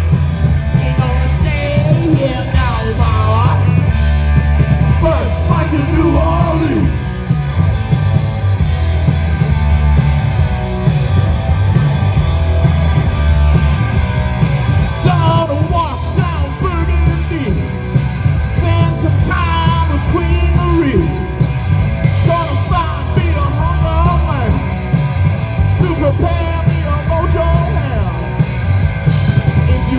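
A loud live heavy rock band playing: distorted electric guitar, bass and drums pounding on without a break, with a vocalist singing and yelling over them.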